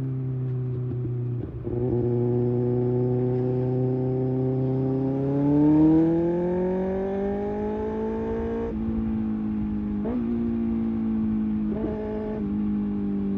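Kawasaki Ninja ZX-6R inline-four running through an IXIL slip-on exhaust at a steady engine speed. Partway through, the revs climb smoothly for a few seconds, then drop back suddenly and hold, with a couple of short blips of the throttle near the end.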